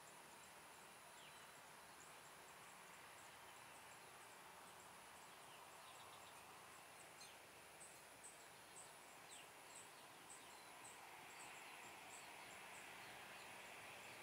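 Near silence: faint outdoor background with insects chirping in a steady high trill, and a few short chirps, denser in the middle.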